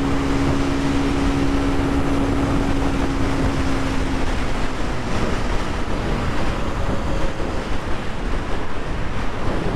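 Aprilia RS 125 single-cylinder four-stroke engine running steadily in fifth gear, buried in loud wind rush on the helmet microphone. The engine's note stands out clearly for the first four or five seconds, then sinks into the wind noise.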